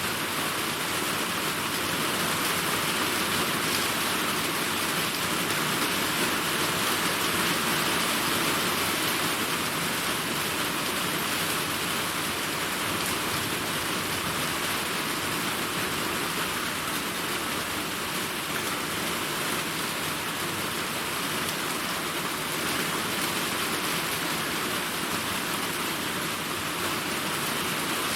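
Steady heavy rain falling and pattering on surfaces, a dense even hiss with no thunder.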